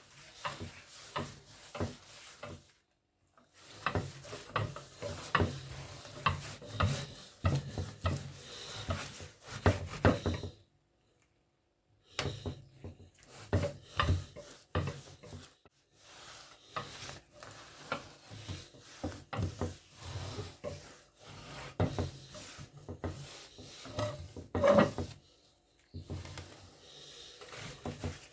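Irregular knocks, clicks and rubbing of objects being handled, in runs broken by a couple of short pauses.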